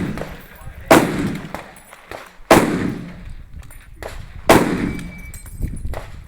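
Three loud gunshots from a firearm, about a second and a half to two seconds apart, each followed by a short echo.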